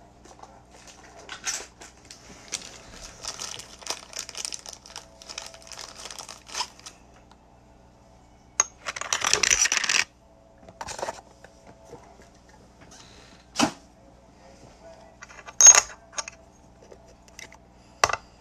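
Small handling noises on a metal workbench: rustling, a short scraping burst about nine seconds in, then a few sharp metallic clicks as an American Silver Eagle coin is set down on the steel die of a coin ring press.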